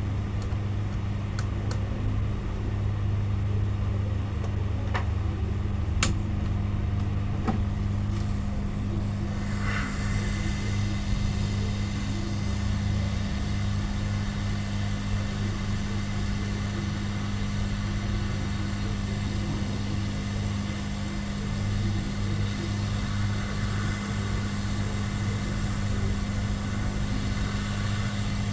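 Hot-air rework gun blowing onto a laptop motherboard to desolder capacitors: its airflow hiss starts about nine seconds in and then runs steadily. Under it there is a constant low hum, with a few sharp clicks before the air starts.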